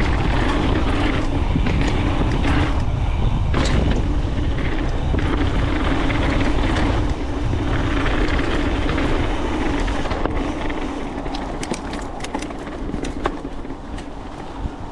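Mountain bike ridden down a dirt trail: wind rushing over the microphone, tyres rolling and the bike rattling over the ground. It gets quieter in the second half, when sharp clicks and rattles from the bike stand out.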